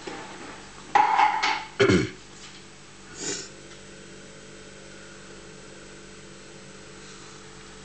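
Gorenje washing machine running on a rinse cycle with a steady hum. About one to two seconds in come a few loud short noises, the last one dropping quickly in pitch, and a brief hiss a second later.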